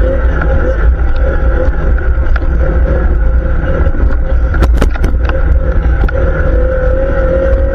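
ATV engine running steadily, with a few sharp knocks or rattles a little past the middle.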